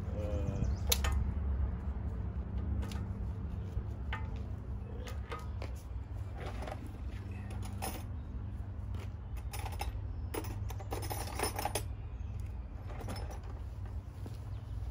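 Steel hand wrenches clinking and jangling as they are handled and fitted to the bolts on an excavator's hydraulic bucket cylinder: scattered sharp metallic clicks, with a quicker run of them about ten seconds in, over a steady low hum.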